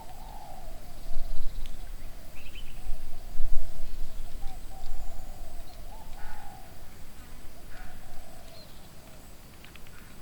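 Bird calls, wavering and repeated, over an uneven low rumble.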